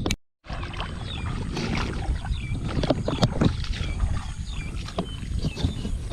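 Water sloshing and splashing with scattered knocks, under a string of short, high chirps repeating about twice a second.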